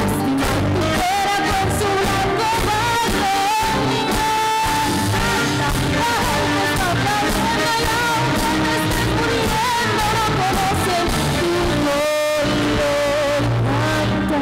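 A female soloist sings held notes with vibrato over a live rock band playing drums, bass, guitars and keyboards.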